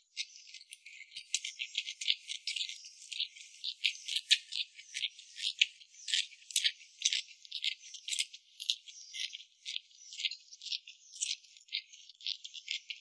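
Gloved hands tossing and squeezing chili-dressed green vegetables in a clay bowl: a thin, high, rapid, irregular crackling and rustling of wet food and plastic gloves.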